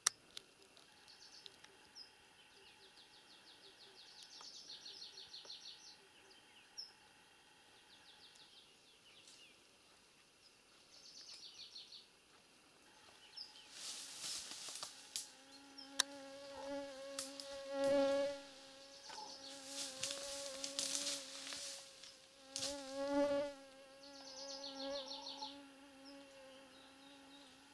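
A flying insect's buzzing whine, wavering in pitch, starts about halfway through and swells loudest twice as the insect passes close to the microphone. Before it come faint, fast, high trills.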